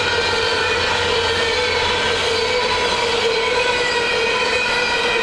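Train rolling past on the tracks: a steady rolling noise with a sustained, even-pitched ringing whine over it.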